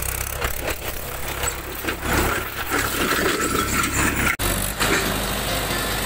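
Mahindra 575 DI tractor's four-cylinder diesel engine running steadily while working a tilled field, with a brief dropout about four seconds in.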